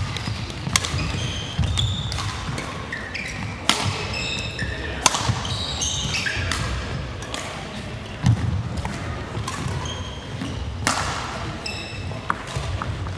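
Badminton singles rally: several sharp racket strikes on the shuttlecock at irregular spacing, with court shoes squeaking on the wooden floor and footsteps thudding in between.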